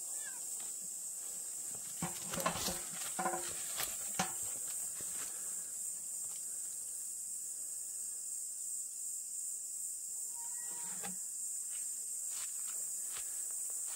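Steady high-pitched hiss of outdoor background with a burst of rustling and scratching clicks about two to four seconds in, as a cat climbs among tree branches, and a few fainter clicks near the end.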